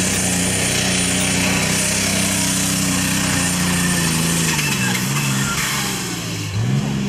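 Allis-Chalmers super stock pulling tractor's engine running flat out under load as it drags the sled. About four seconds in its pitch sags as the pull runs out, with a short rev up and back down near the end.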